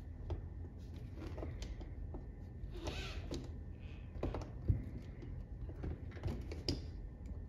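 Utility knife cutting a piece of rubber fuel line by hand, with scattered small clicks, taps and short scrapes of handling on the workbench. A slightly louder scrape about three seconds in, and a sharper tap a little before the five-second mark.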